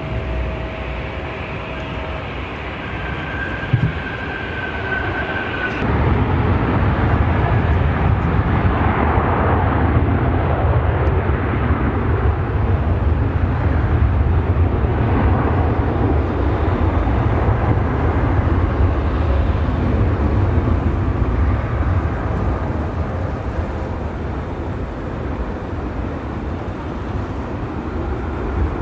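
Jet airliner engine noise: a whine with a few held tones at first, then about six seconds in a louder, steady, deep rumble takes over and holds. A short click comes just before the rumble.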